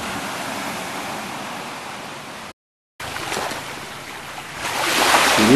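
Ocean waves washing in as a steady rush, broken by a half-second gap about halfway through, then swelling louder near the end.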